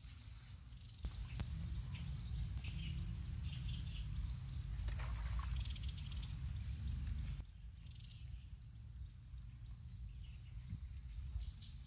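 Wind rumbling on the microphone in open marshland, louder from about a second in and dropping suddenly about seven seconds in, with short high chirps of birds over it.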